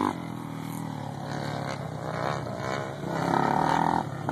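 Off-road vehicle engine running steadily on the sand dunes, then revving louder about three seconds in.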